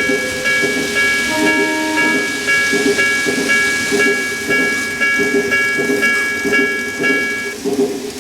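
TOMIX 5569 TCS automatic level crossing II model sounding its electronic warning bell, a two-note ding repeating about twice a second, which stops about seven and a half seconds in. A low, uneven rumble from the model train running on the track continues underneath. A short held horn tone comes in about a second and a half in.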